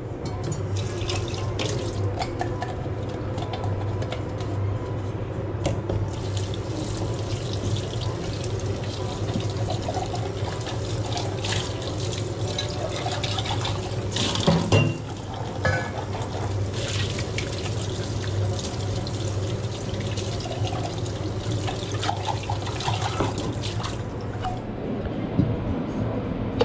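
Water running from a tap into a sink, with a few knocks and clinks of things being handled at the sink about halfway through and a steady low hum underneath.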